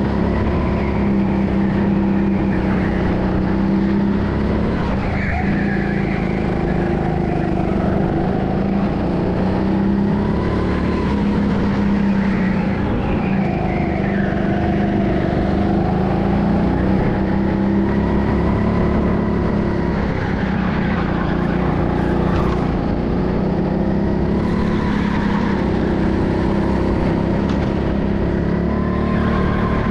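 Go-kart running at speed on a karting track, recorded from the driver's helmet: a steady motor sound whose pitch rises and falls gently with speed through the corners, over constant road and wind noise.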